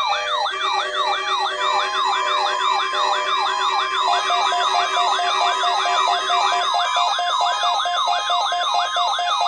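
Electronic siren yelping, about three quick sweeps in pitch a second, over a steady high warning tone and other held tones, sounding as an emergency-alert warning alarm. It starts sharply and continues unchanged to the end; one of the lower held tones drops out partway through.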